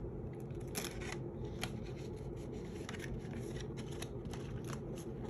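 Paper banknotes and a cash envelope being handled, with scattered short rustles and light clicks as bills are slipped in, over a steady low hum.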